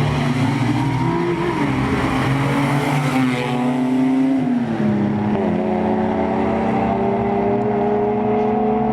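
Car engine running hard at high revs, its pitch climbing and wavering, then dropping sharply about four and a half seconds in before climbing slowly again.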